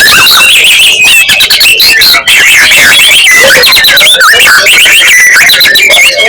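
Caged songbird singing loudly in full song: a dense, unbroken stream of rapid chirps, trills and quick up-and-down whistled notes.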